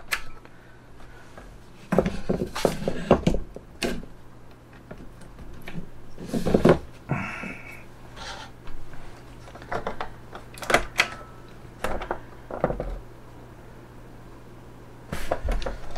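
Scattered clicks and knocks of hands handling small computer gear on a desk while a FreHD hard-drive emulator board is switched on, over a steady low hum.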